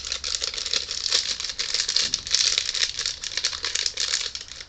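Small crinkly candy wrapper being worked open by hand: a continuous dense crinkling and crackling of the packaging.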